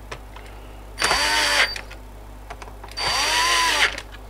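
Cordless drill-driver spinning up and back down in two short bursts about two seconds apart, each under a second and rising then falling in pitch, as it runs screws into the sheet-metal bottom panel of an automatic transfer switch to close it.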